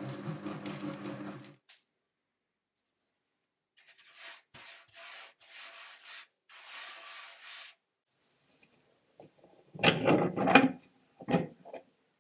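Magimix Cook Expert food processor motor running briefly, kneading dough at speed 3. Then a hand rubs flour across a wooden table in a few strokes. Near the end, louder knocks and clatter as the metal bowl and kneading blade are handled.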